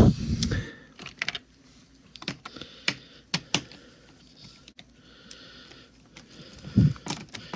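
Irregular clicks and taps of a hand screwdriver backing out the Phillips and T20 Torx screws that hold a Jeep JK soft top's plastic folding bow knuckle, with a couple of dull bumps.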